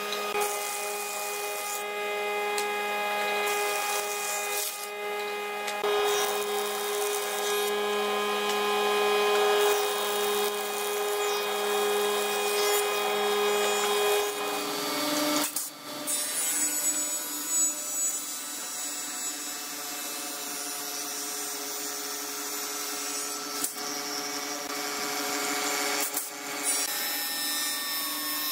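Wood planer running with a steady hum while boards are fed through and planed. About fifteen seconds in, the sound changes to a different woodworking machine, a spindle moulder, running with a steady, slightly higher hum as wood is cut against it.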